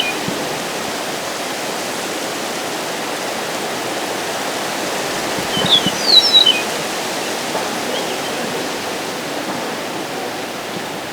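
Steady wind rushing. A small bird gives a few brief high chirps about six seconds in.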